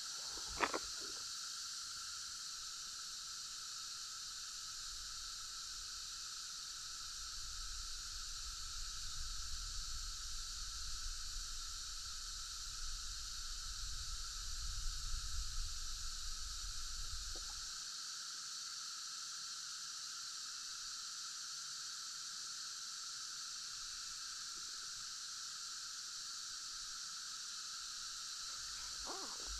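Steady insect chorus: a constant high buzzing hiss held at fixed pitches. A single sharp click comes just after the start, and a low rumble rises and falls from about 7 to 18 seconds in.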